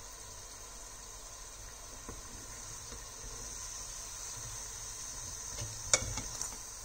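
Bread rolls deep-frying in hot oil, a steady bubbling sizzle. About six seconds in, a metal slotted spoon clinks once against the pot as it lifts a roll.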